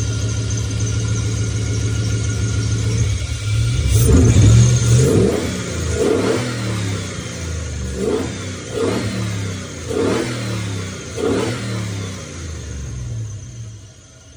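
LS 6.0-litre V8 idling, then revved in a run of quick throttle blips from about four seconds in, each rising and falling in pitch, before it drops back toward idle near the end.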